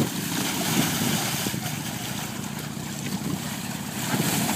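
Water sloshing in a shallow inflatable pool as people roll and stumble inside water-walking balls, over a steady rushing noise.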